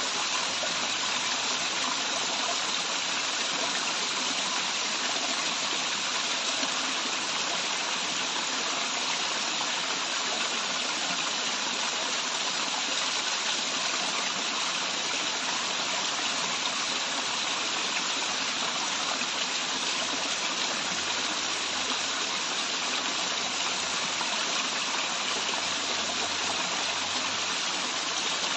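Running water from a waterfall: a steady, even rush of falling and splashing water.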